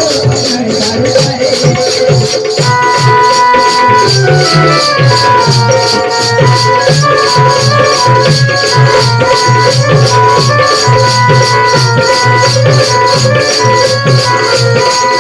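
Loud instrumental folk dance music: a steady, even beat with a rattling shaker-like percussion and low drum pulses, joined about two and a half seconds in by a melody that steps up and down in pitch.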